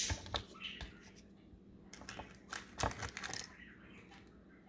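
Small plastic toy pieces and their packaging being handled: scattered light clicks and rattles at an uneven pace, with the loudest clicks near the start and about three seconds in.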